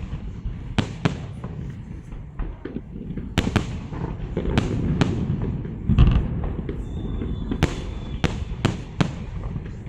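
Fireworks salute: a string of sharp bangs at irregular intervals over a continuous low rumble of bursting shells, with the heaviest boom about six seconds in.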